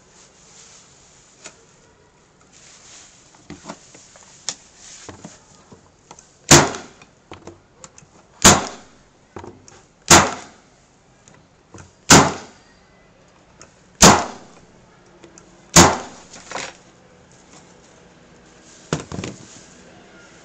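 Corded electric staple gun firing staples into wood: six sharp shots about two seconds apart, then a few lighter knocks near the end.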